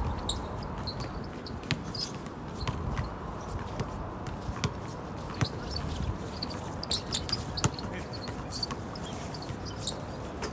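Basketballs bouncing on an outdoor court: sharp, irregularly spaced thuds over a steady low background rumble.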